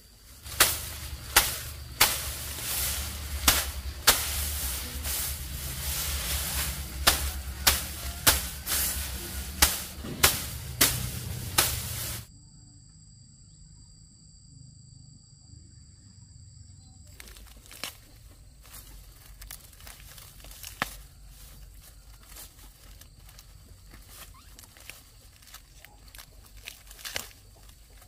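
Loud rustling with a series of about a dozen sharp knocks, roughly one every half second to a second, cutting off suddenly about twelve seconds in; after a short near-silent gap, faint scattered ticks follow.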